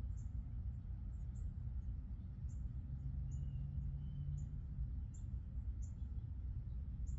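Outdoor nature ambience: very short, high chirps repeating irregularly about once or twice a second over a steady low rumble.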